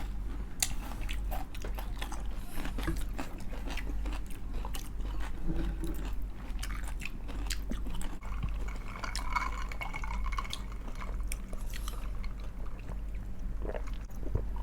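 Close-up crunching and chewing of crispy fried chicken skin: many irregular sharp crackles as it is bitten and chewed, over a steady low hum.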